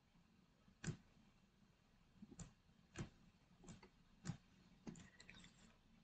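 Faint, irregular clicks of a computer mouse and keyboard being worked: about six sharp clicks spaced unevenly, with a few lighter ticks near the end.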